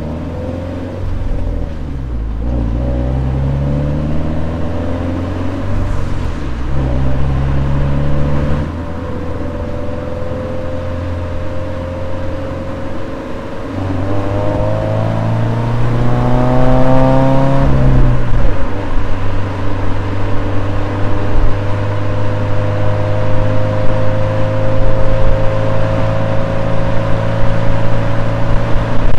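Toyota 86's flat-four engine under way, its note rising with the revs and dropping suddenly at gear changes about eight and eighteen seconds in, then climbing slowly and steadily.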